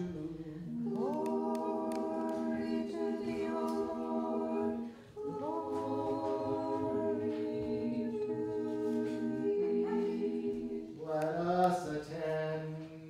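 A small group of voices singing Orthodox liturgical chant a cappella, in two long phrases with each chord held for several seconds, followed near the end by a shorter phrase whose pitch moves.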